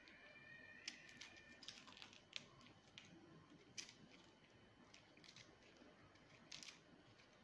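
Faint, irregular small clicks and scrapes of a kitchen knife peeling garlic cloves against a ceramic plate, with a faint steady high tone in the first couple of seconds.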